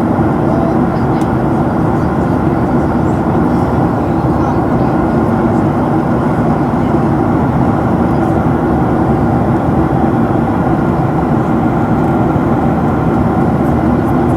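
Steady cabin noise inside a Boeing 737-300 in flight: a constant deep drone of engines and rushing air, unchanging throughout.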